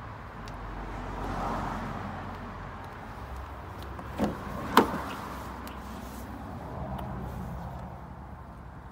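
Ford Focus rear passenger door being opened: two sharp clicks about half a second apart as the handle is pulled and the latch releases, against a steady low background noise.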